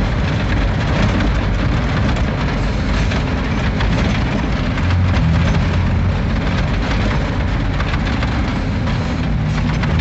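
Truck driving on a rough dirt road, heard from inside the cab: a steady engine drone with the cab and body rattling over the bumps. A low engine tone stands out for a moment about halfway through.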